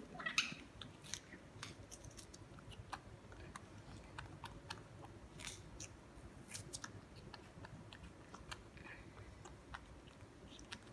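A baby monkey biting and chewing a piece of green fruit: faint, irregular crunchy clicks of eating.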